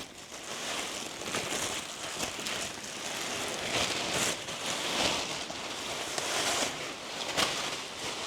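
Plastic packaging crinkling and rustling as it is handled and pulled off, with many small irregular crackles.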